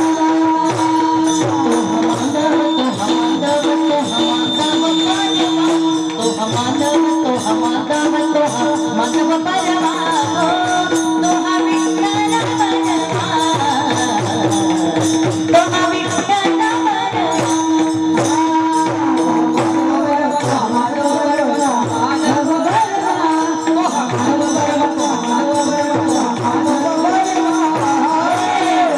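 Music over a steady held drone note, with a winding melody and busy percussion made of many quick strikes.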